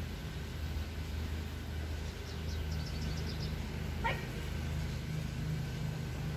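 A dog gives one short, sharp yip about four seconds in, over a steady low hum. A quick run of faint high chirps comes about a second before it.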